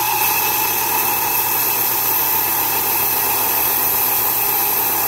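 Benchtop saw's blade grinding into a hard stone as it is slowly fed into the cut, a steady whining drone with an even high hiss.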